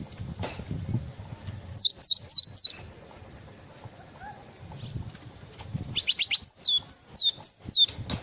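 Gelatik songbird singing: a quick series of four sharp falling whistles about two seconds in, then from about six seconds a burst of rapid chirps running into a string of falling whistled notes.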